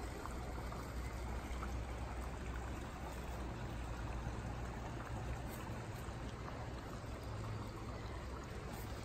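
Small rocky creek trickling and flowing steadily, with a low rumble underneath.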